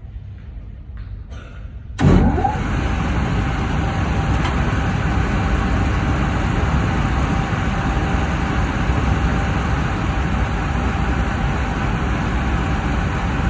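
A motor-driven machine switched on about two seconds in: it spins up with a brief rising whine, then runs steadily with a dense, even rushing noise.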